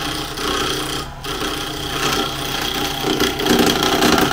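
Wen 3421 benchtop wood lathe running while an ordinary wood chisel, not a turning tool, scrapes and chews into the spinning blank to round it. The cutting noise drops briefly about a second in and is loudest near the end, over the steady hum of the motor.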